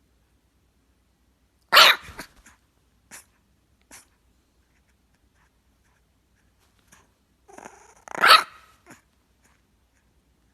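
A puppy barking twice, about six seconds apart, with a few faint clicks in between.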